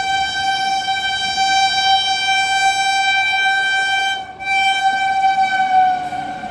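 Indian Railways electric locomotive's horn sounding one long, loud blast, with a brief break about four seconds in; its pitch sags slightly near the end.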